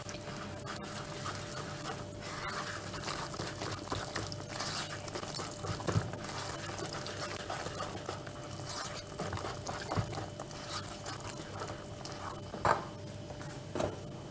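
Wire whisk stirring flour into a wet, sticky batter in a bowl: continuous wet swishing and squelching, with small clicks of the wires against the bowl. Near the end there are two sharper knocks.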